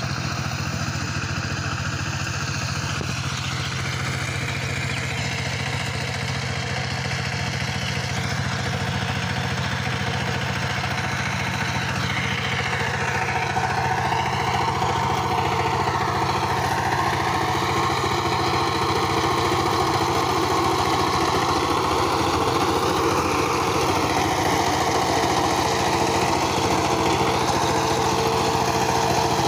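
Two-wheel power tiller's single-cylinder diesel engine running steadily under load while its rotary tiller cuts through dry stubble soil. It gets louder about halfway through as the tiller comes close.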